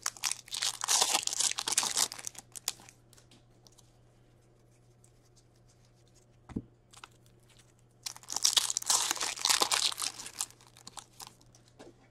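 Foil hockey card pack wrappers crinkling and tearing open in two bursts, one at the start and one about eight seconds in, with light clicks of cards being handled between.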